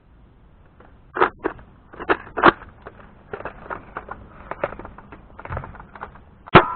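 Plastic clicks and clacks of a Nerf rifle being handled, primed and fired at a target, with a few loud knocks early and a single sharp snap near the end.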